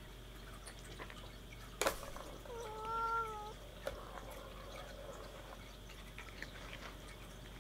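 A cat meows once, a short, nearly level call of about a second, roughly three seconds in. A sharp click comes just before it.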